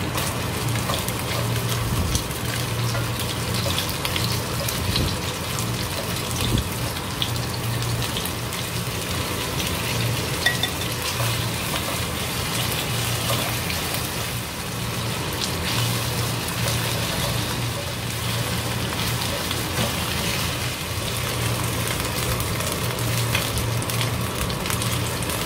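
Diced chicken pieces sizzling steadily as they pan-fry in oil in a nonstick frying pan, with occasional short clicks of kitchen tongs turning them.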